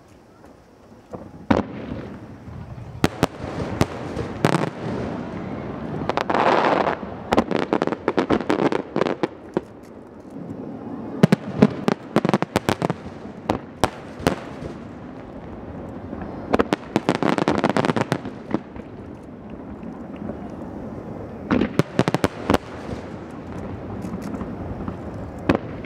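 Aerial firework shells bursting in rapid volleys: clusters of sharp bangs, with crackling between them, starting a second or two in.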